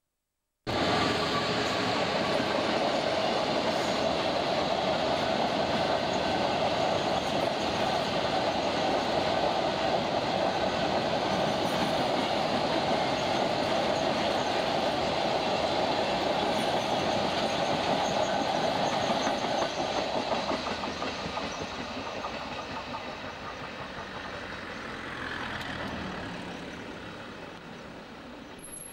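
A long freight train of coal hopper wagons behind a diesel locomotive rolling past, a steady loud rumble with wheels clattering over the rails. It starts abruptly just under a second in and fades away over the last several seconds as the train draws off.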